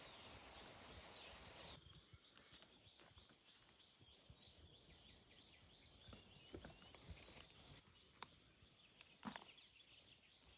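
Faint forest ambience: a steady high insect buzz and a few bird chirps cut off abruptly about two seconds in, leaving near silence with faint chirps and a few light clicks.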